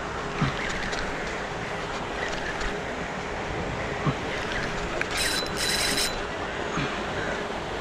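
Steady rushing noise of wind and the pond's splashing paddlewheel aerators, with a few soft knocks from the spinning reel being cranked against a fish. About five seconds in, a short high-pitched buzz comes twice.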